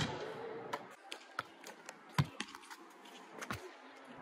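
A louder noise dies away at the start, then scattered light taps and knocks follow, with a heavier thud about two seconds in, from a basketball bouncing on the court during a shootaround.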